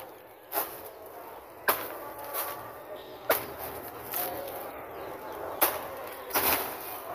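Machete chopping into a felled banana trunk: about five sharp hacks, roughly a second apart, with a few lighter knocks between them.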